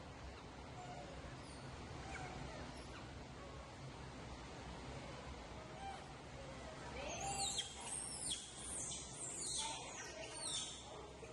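Faint background for several seconds, then about seven seconds in a run of high-pitched animal calls, each falling in pitch, about two a second.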